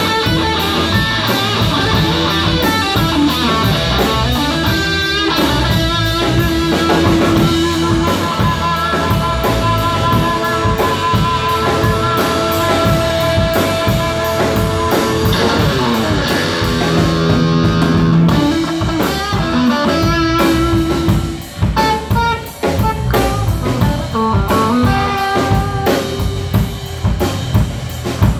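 Live blues-rock band: a Stratocaster-style electric guitar playing lead, with held and bending notes, over electric bass and a drum kit.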